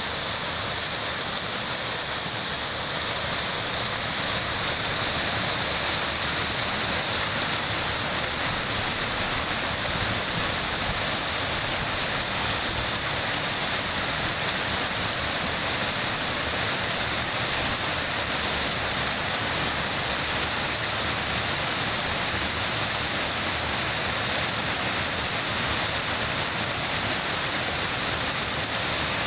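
River water running steadily: an even, unbroken rush of flowing water.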